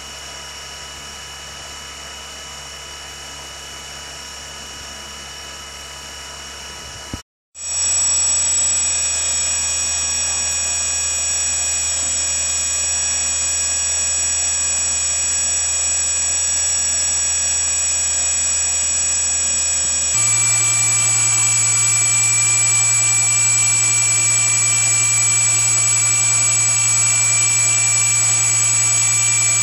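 Brushless outrunner motor spinning a propeller under ESC drive: a steady electric whine with several high tones over a low hum. It drops out briefly about seven seconds in and comes back louder, then steps up in pitch around twenty seconds in.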